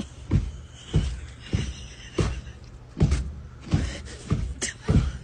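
Background hip-hop music with a heavy, steady kick-drum beat, about three beats every two seconds.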